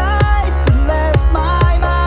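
Electronic dance music with a steady kick drum about twice a second and a sliding synth melody.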